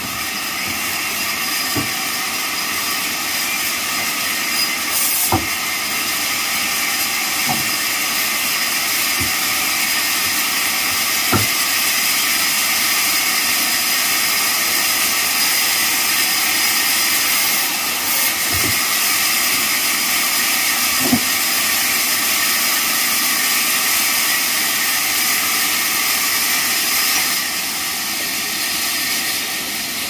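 Large vertical band sawmill running with a steady high hiss as boards are fed through its blade, with a few short knocks of wood being handled on the table.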